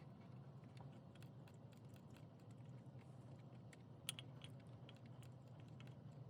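Faint, scattered light clicks and taps of hands and small tools working on engine parts, with one slightly louder click about four seconds in, over a low steady hum.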